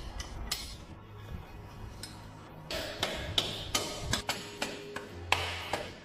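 Sharp metallic clicks and taps from hand tools and parts being fitted during motorcycle reassembly: a quick run of them about three seconds in and a louder knock near the end, over background music.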